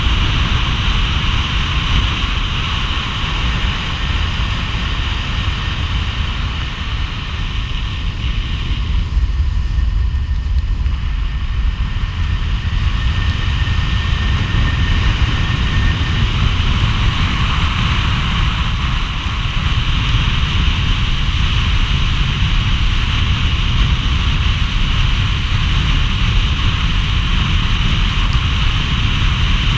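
Steady rush of a car driving on a wet road: tyre hiss and wind noise over a low rumble, easing briefly about ten seconds in.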